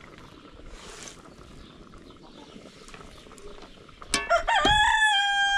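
A rooster crowing about four seconds in: a few short broken notes, then one long, loud held note.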